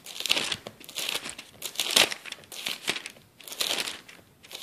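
Paper rustling and crinkling as pages are leafed through, in about half a dozen irregular rustles.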